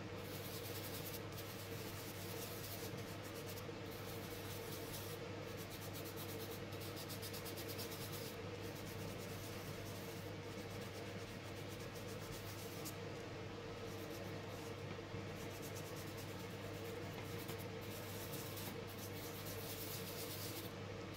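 Fingertips rubbing soft pastel powder into paper over a plastic stencil: a faint, steady scratchy rustle of many quick small strokes, over a low steady hum.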